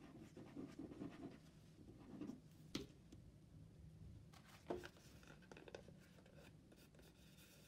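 Faint handling noise of paper and card pieces on a tabletop: light scraping and rustling, with two short taps about three and five seconds in.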